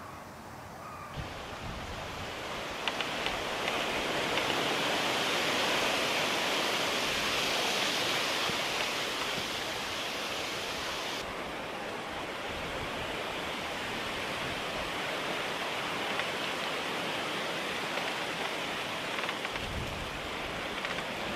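Wind rustling through the dry autumn leaves of Japanese zelkova trees, a steady hiss that swells over the first few seconds and eases a little partway through.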